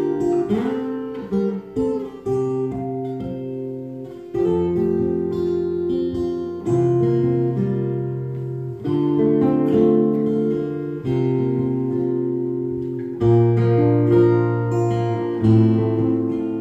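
Steel-string acoustic guitar and nylon-string classical guitar playing an instrumental piece together. From about four seconds in, chords are struck about every two seconds and left to ring, with picked melody notes over them.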